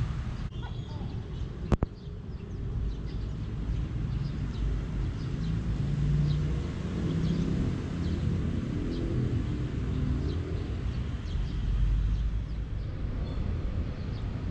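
Outdoor background: a steady low rumble of distant traffic with faint, scattered bird chirps, and a single sharp click about two seconds in.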